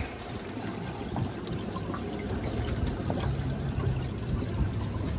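Seawater sloshing and lapping against the side of a fishing boat, over a low steady hum.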